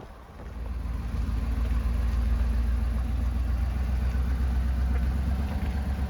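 Car engine and tyre rumble while driving on a rough back road: a deep, steady drone that swells about half a second in and then holds.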